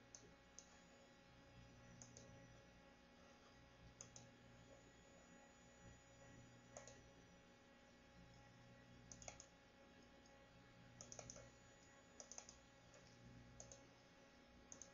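Faint, scattered clicks of a computer mouse and keyboard, about a dozen, some in quick pairs, over a low steady hum.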